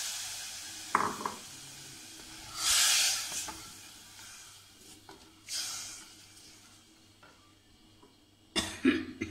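A spatula stirring soaked chana dal and freshly added water in an aluminium pressure cooker. A hiss from the water on the hot pan fades over the first second. After that come a knock against the pot, two sloshing swishes, and a few clacks of the spatula on the cooker near the end.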